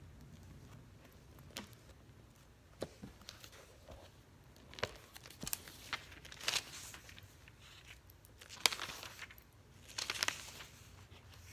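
Pages of a thin-paper Bible being turned and rustled by hand while a passage is looked up: a series of short papery swishes and soft taps, louder in the second half.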